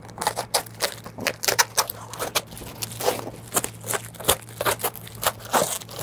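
Hands picking, scratching and tearing at the tape and flaps of a small cardboard shipping box: a long run of irregular crackles, scrapes and short rips. A steady low hum sits underneath.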